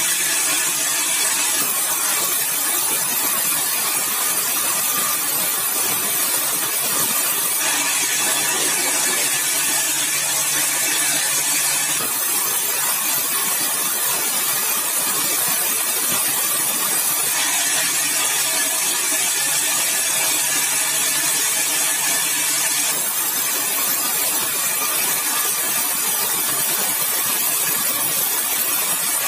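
Sawmill saw cutting through a yellow balau (bengkirai) hardwood log, a steady loud hissing cut over a running engine, the tone shifting every five seconds or so.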